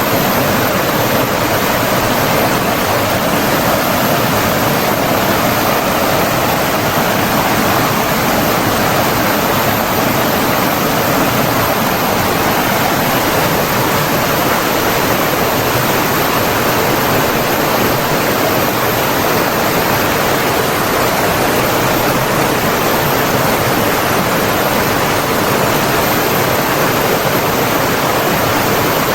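Flowing water rushing steadily, an even unbroken wash of water noise with no distinct splashes or pauses.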